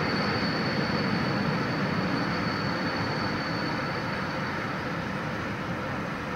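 A Swiss passenger train's coaches rolling past, with a steady rumble of wheels on rails that slowly fades as the train moves away. A thin, high, steady whine fades out about two-thirds of the way through.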